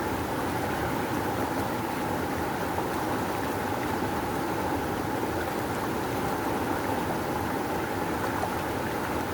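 River water rushing and churning in a steady, dense roar with no breaks.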